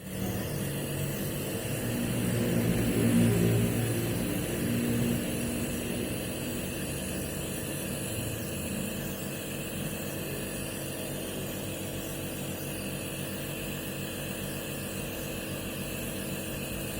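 Compressor nebulizer running for a child's steam inhalation treatment: a steady motor hum under a hiss of air, louder for a few seconds near the start.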